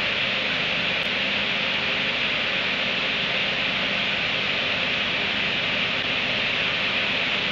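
Steady, even hiss with a faint low hum under it; no separate sounds stand out.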